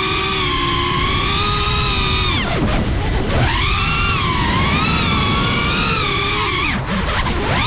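FPV quadcopter's motors and propellers whining, their pitch wavering up and down with the throttle; twice, about two and a half seconds in and again near the end, the whine drops away steeply as the throttle is cut and then climbs back.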